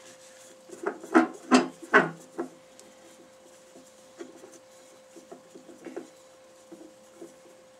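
Clunks and knocks from taking the oak workpiece off the lathe chuck and turning it around: four sharp ones in quick succession in the first two and a half seconds, then lighter scattered taps, over a faint steady hum.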